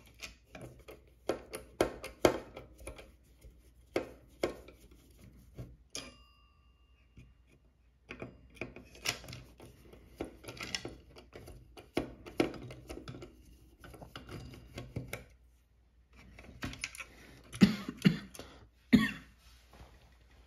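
Screwdriver and hands working screws out of a telephone's plastic base to free its metal bell: irregular clicks, scrapes and small knocks. About six seconds in the bell's single gong gives a short metallic ring when knocked, and a few louder knocks come near the end.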